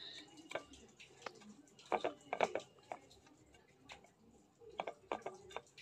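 Hand smoothing and tucking a damp cotton cloth over kneaded dough in a bowl, giving faint scattered taps and rustles, a little louder about two seconds in and again near the end.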